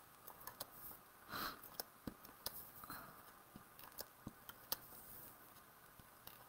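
Faint handling of a piece of cardstock as adhesive is put on its back: scattered light clicks and taps, with a short papery swish about a second and a half in and a softer one about three seconds in.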